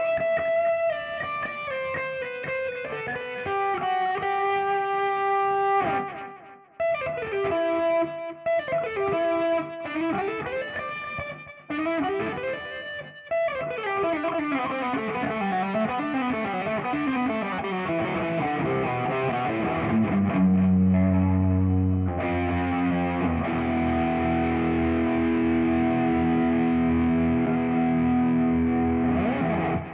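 Samick NSHG 100 FR electric guitar played through distortion and effects software: melodic lead lines with gliding pitches and quick runs, brief breaks between phrases, then low sustained notes for the last third that stop abruptly at the end.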